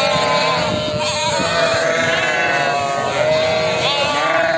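A flock of ewes and lambs bleating, many wavering calls overlapping without a break, as lambs rejoin their mothers and call back and forth with them.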